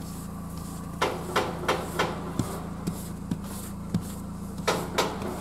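Plastic snow brush knocking and scraping against a car's side window and door as snow and frost are brushed off: about ten sharp knocks in quick, irregular succession starting about a second in, over the steady low hum of the car's idling engine.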